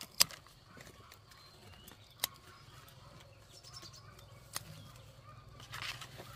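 Three sharp knocks, about two seconds apart, over a faint low steady hum.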